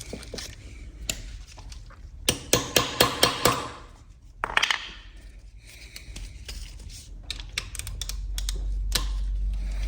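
Metal hand tools clicking and clinking against each other and the engine: a quick, even run of about half a dozen sharp clicks a little after two seconds in, another short cluster around four and a half seconds, then scattered single clicks. A low hum grows louder near the end.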